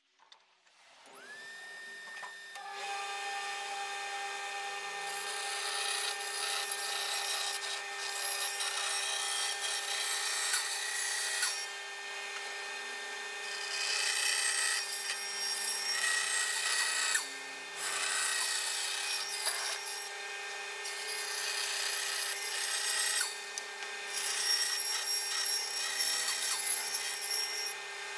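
Bandsaw switched on and spinning up to a steady hum, then its blade cutting a thick old English elm board in several bouts with short pauses between cuts.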